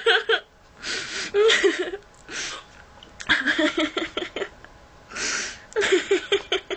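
A girl in a hiccup fit: short breathy gasps, about three of them, alternating with high-pitched voice that breaks up in quick pulses, laughing and whimpering through the hiccups.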